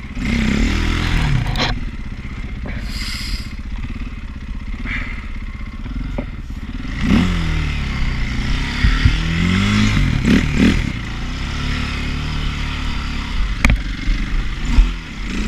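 KTM 530 EXC-R four-stroke single-cylinder dirt bike engine revving up and down as it is ridden over rough ground, with clattering and scraping. Near the end there is a sharp knock as the bike goes down on its side.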